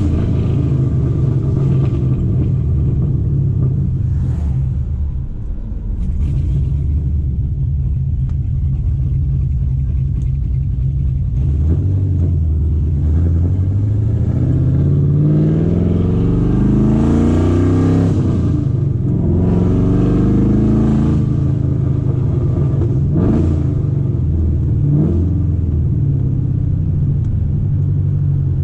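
Corvette V8 engine under way, running steadily and then revving up under throttle, its pitch climbing twice in the middle of the stretch. It is a hard-acceleration test run of a car that loses spark intermittently under heavy throttle.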